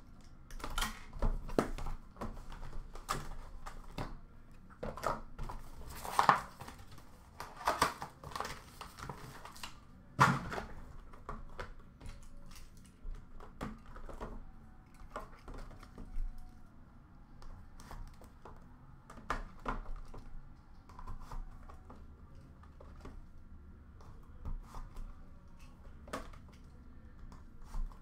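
Cardboard card packs and their box being handled and set down on a glass counter-top: irregular light taps and clicks with some rustling, a few sharper knocks about six and ten seconds in.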